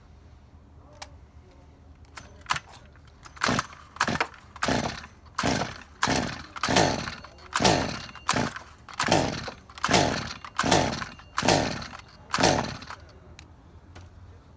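Stihl MS201TC-M chainsaw being pull-started: about a dozen quick rope pulls in a row, each a brief whir that falls in pitch as the engine turns over, without the engine catching and running. The saw only pops and fires intermittently, which the mechanic takes as a red flag for a fault in its M-tronic ignition.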